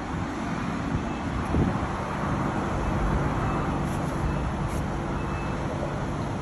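Suzuki GSX-R1000R's inline-four engine idling steadily through twin aftermarket slip-on mufflers, with a brief louder burst about one and a half seconds in.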